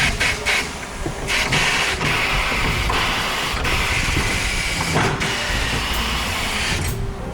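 Steady hiss of rushing air, starting about a second in and stopping shortly before the end, with a few sharp clicks and knocks.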